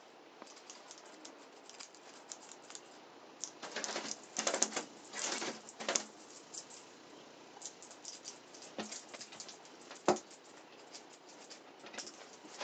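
Scuffling and light ticking of a young Norwegian Forest Cat playing with a feather toy on a plush cat-tree platform. Louder rustling comes in bursts from about four to six seconds in, and there is one sharp knock about ten seconds in.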